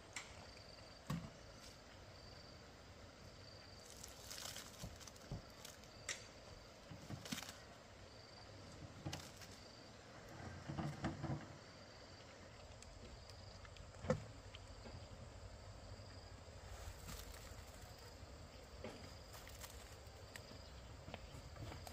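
Quiet rural outdoor ambience: a faint high chirp repeating about once a second, with scattered knocks and rustles and one sharper knock about fourteen seconds in.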